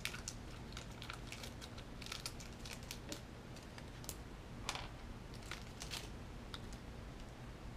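Scattered small clicks and crinkles of plastic and paper packaging as a 3 mL syringe and a filter needle are unwrapped and handled.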